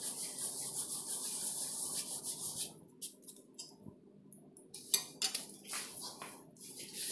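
Dry rustling as dried fenugreek leaves (kasuri methi) are crushed between the hands over the pan, then, after a quiet moment, a steel spatula clinking and scraping against a steel kadai as the rajma curry is stirred.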